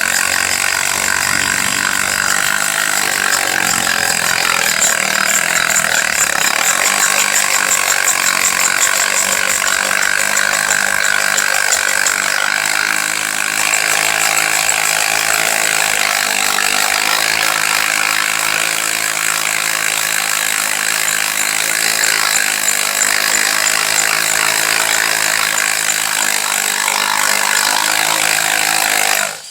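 Regular drill on its hammer setting boring into concrete with a 3/8-inch masonry bit, running steadily with a fast rattle from the hammer action. It stops abruptly at the very end.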